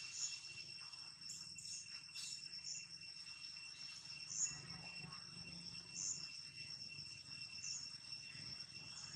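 Steady high drone of insects, two even tones held without a break, with short high chirps every second or two on top.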